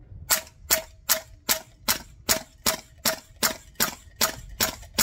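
MWS-style gas blowback airsoft rifle firing about a dozen semi-automatic shots at a steady pace of roughly two and a half a second, each a sharp crack with a short metallic ring: a string fired through a chronograph to measure its FPS.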